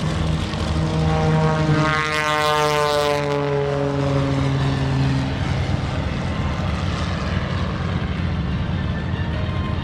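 Propeller aircraft engine passing low and close. Its note falls in pitch as it goes by, loudest a couple of seconds in, then settles into a steady drone as the aircraft climbs away.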